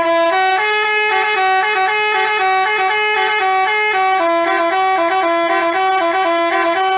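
Basuri telolet horn playing a quick melody, hopping between a few notes several times a second without a break.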